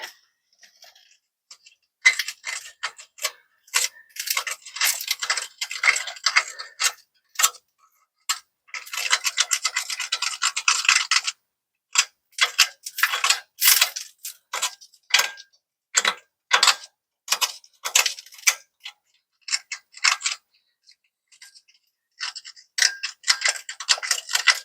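Hand tools working on metal: irregular sharp clicks and short scraping rasps. About nine seconds in comes an unbroken run of very fast clicking lasting about two seconds.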